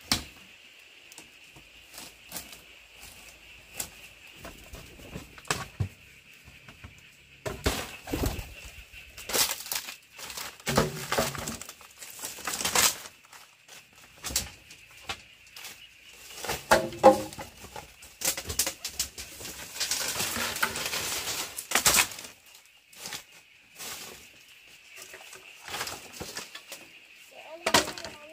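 Woven bamboo wall panels and poles being pulled loose and handled, with irregular bamboo knocks and clatters and the rustle and crunch of dry palm-leaf thatch underfoot. A steady high-pitched drone runs in the background.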